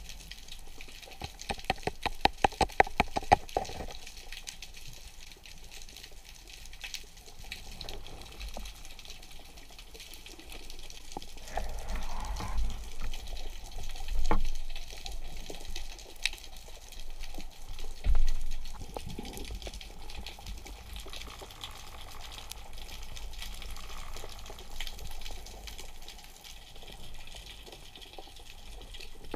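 Underwater sound through a camera housing during a freedive: a muffled wash of water with a rapid run of clicks, about eight a second, for a few seconds near the start, and a few dull low thuds later on.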